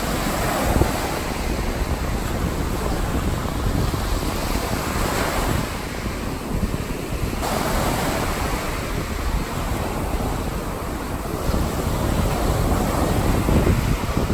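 Gulf of Mexico surf breaking and washing up the sand, swelling and falling back with each wave, with wind buffeting the microphone as a steady low rumble.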